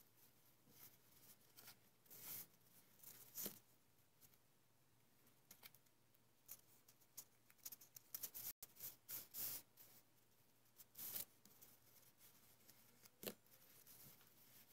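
Faint, irregular rustling and crinkling of satin ribbon as hands fold it into pleats and press them flat.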